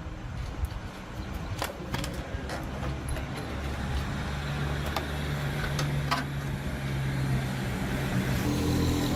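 An engine running steadily at low speed, growing a little louder partway through, with a few sharp clicks over it.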